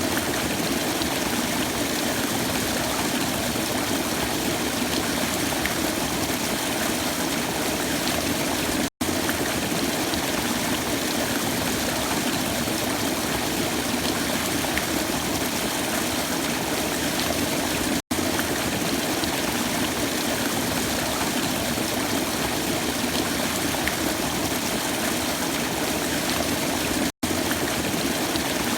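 Waterfall: a steady rush of falling water, cut by brief silent gaps about every nine seconds.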